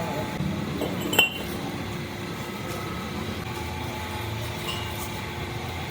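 A single sharp metallic clink with a short ring, about a second in, from metal tools or parts knocked together during the axle repair, over a steady background hum.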